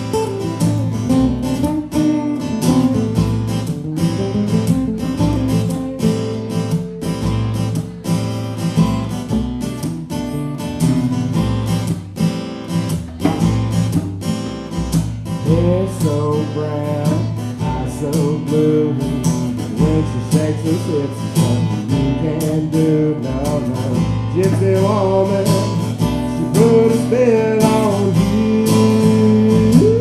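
Two acoustic guitars played live together, strumming chords at a steady pace.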